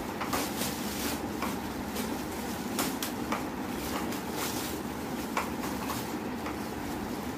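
Scattered clicks and light knocks of plastic parts being handled and fitted together as a plastic baby walker is assembled, with crinkling of plastic packaging.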